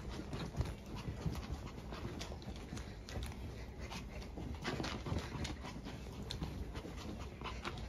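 A small Maltese dog panting.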